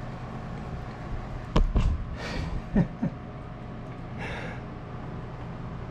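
A few sharp knocks and short scraping rustles of parts being handled on a machine, over a steady low hum. The knocks come about one and a half seconds in and again near three seconds.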